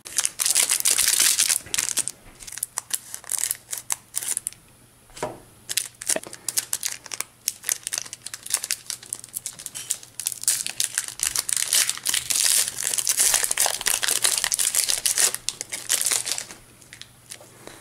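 Foil wrapper of a trading-card booster pack being crinkled and torn open: a stretch of crackling at first, scattered clicks in the middle, and a longer run of crinkling toward the end.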